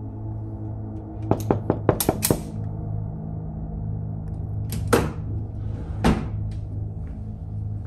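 A quick run of sharp metallic clicks from a revolver being handled, then two knocks about five and six seconds in as a kitchen drawer is pushed shut, over a steady low hum.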